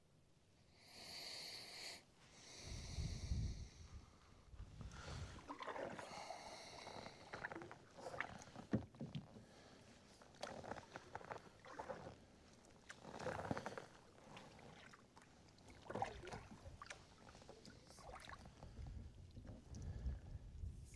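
Kayak being pushed along through a shallow, muddy creek: irregular strokes in the water and mud, with sloshing and knocks against the hull.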